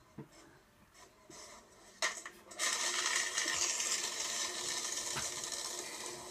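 Electric paper shredder starting up about two and a half seconds in and running steadily as it shreds paper, heard through laptop speakers.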